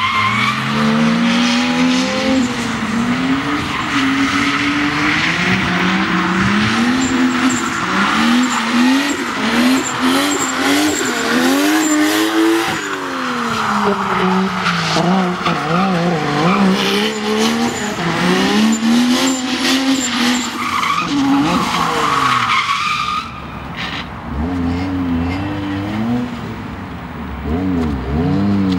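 Drift cars, a Nissan Skyline R33 and then a Mazda RX-8, sliding through a corner on a damp track: the engines rev up and down again and again under a hiss of skidding tyres. The sound drops somewhat in level for the last few seconds.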